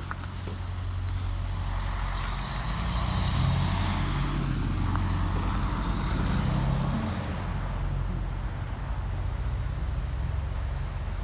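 A motor vehicle passing, growing louder for a few seconds in the middle and then fading, over a steady low rumble.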